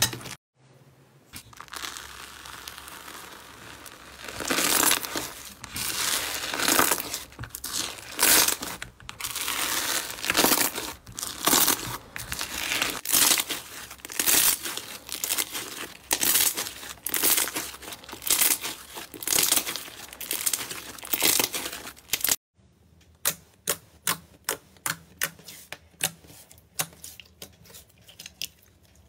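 Hands squeezing and kneading a grainy orange slime, making crinkling, crackling squelches in repeated bursts. About three-quarters of the way through this gives way to glossy dark glitter slime being pressed on a flat surface, which makes a quick run of sharp popping clicks.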